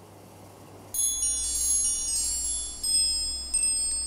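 After about a second of near quiet, bright chime tones ring in over a low steady hum and are struck again several times: a shimmering chime transition sting between sections.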